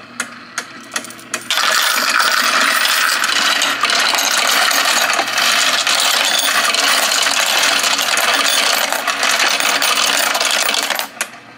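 Royal Sovereign Quick Sort CO-1000N automatic coin sorter running, its motor humming and its mechanism ticking a few times a second. About a second and a half in, a loud, continuous clatter of coins churning through the sorter and dropping into the tubes starts, lasting about nine seconds, then it falls back to the ticking near the end.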